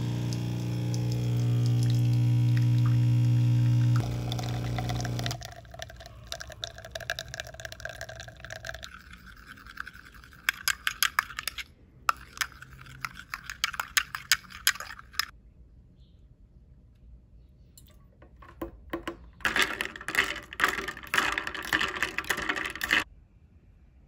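Capsule espresso machine's pump buzzing steadily as coffee pours into a cup, stopping about five seconds in. Later a spoon clinks and scrapes while stirring in a cup.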